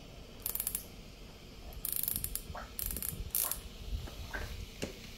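Several short bursts of rapid clicking and a few single ticks from a plastic steam iron as it is handled and turned over.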